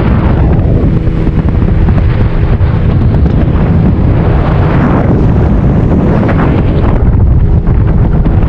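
Loud wind buffeting the microphone, a dense rumbling rush with a faint steady hum under it for the first couple of seconds.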